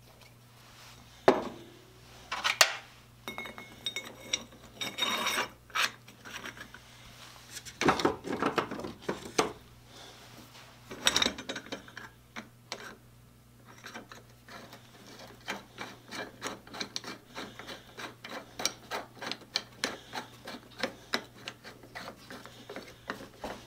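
Screwdriver tip scraping and chipping welding slag off a fresh weld on a steel block, in short metal-on-metal strokes. At first the strokes are irregular with pauses; after the halfway point they come quickly and evenly, about three a second.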